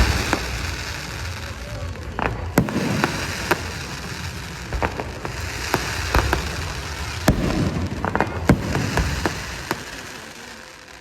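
Fireworks display: aerial shells bursting in sharp bangs at irregular intervals over a steady crackling, dying down near the end.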